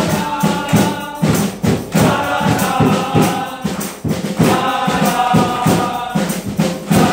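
A group of men singing a Malayalam Christmas carol together, with hand claps keeping a steady quick beat.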